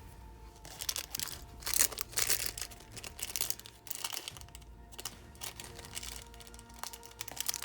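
Small plastic packets of nail-art charms crinkling as they are handled, in irregular bursts that are loudest about two seconds in, with a few light clicks.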